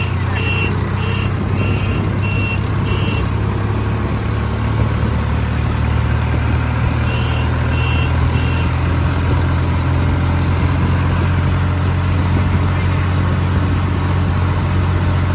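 Swaraj 963 4WD tractor's diesel engine running steadily under way, heard close up from the driver's seat. A run of short high beeps, about three a second, sounds over it in the first three seconds and again about seven seconds in.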